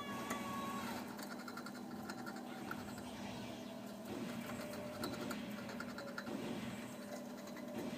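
Sleeping ferret snoring softly, the snores swelling about once a second with its breathing, with faint scratchy ticking as its paws twitch. A steady low hum runs underneath, and a brief whistle-like squeak sounds right at the start.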